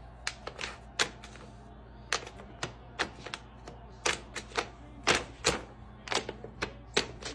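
Brown paper bag crackling in short, irregular sharp crinkles as a cat paws and scrapes at it, over a low steady hum.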